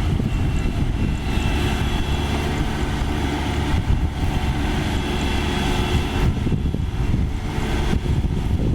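Kubota DC-35 combine harvester's diesel engine running steadily, with a higher whine joining about a second in and dropping away near the end.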